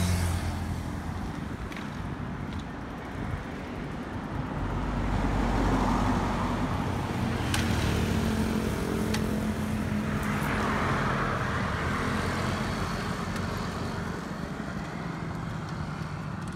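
Road traffic: small motor scooters and motorcycles pass with their engines running, over a steady road rumble. It is loudest around the middle.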